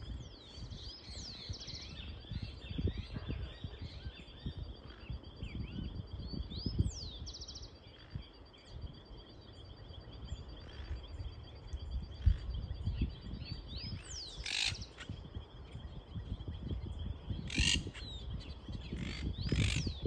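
Monk parakeets chattering: short whistled chirps throughout, with three loud, harsh squawks in the last six seconds. A steady thin high tone and a low rumble run underneath.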